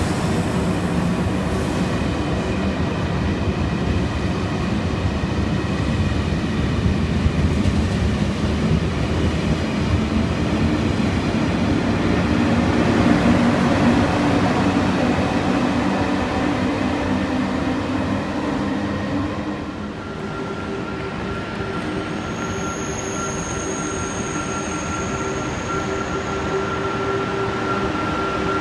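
A single-deck TGV rolling along the platform, a dense rumble of wheels on rail with a low drone. About twenty seconds in this gives way to an approaching TGV Duplex: a quieter rumble under steady high-pitched squealing tones as it brakes into the station.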